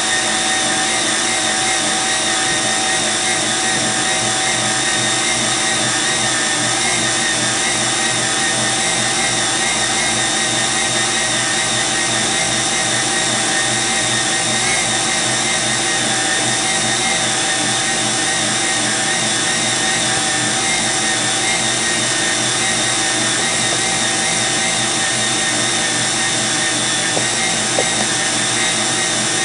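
Electric stand mixer motor running steadily, a constant whirring hum with a whine on top, as it beats the whipped egg-and-sugar cake batter while flour is spooned in.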